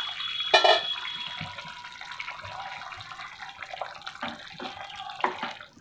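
Potato curry simmering and bubbling in an open pan, with a single metallic clink and short ring about half a second in, then a wooden spatula stirring and scraping through the gravy near the end.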